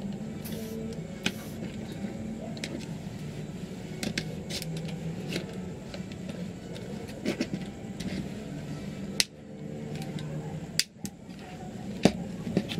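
Scattered sharp clicks and knocks of a hard plastic drone battery case being pried open by hand against a table, the loudest about nine and twelve seconds in, over a steady low hum.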